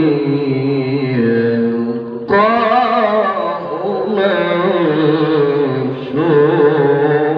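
Male qari's voice reciting the Quran in a slow, melodic tajweed style, drawing out long ornamented notes. The phrase breaks off briefly about two seconds in before a new phrase begins.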